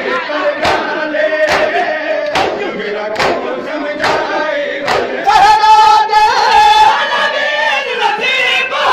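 Matam: a crowd of mourners slapping their bare chests in unison, a sharp slap a little under once a second, while a crowd of men chants a noha. About five seconds in, louder male voices singing the noha come to the fore.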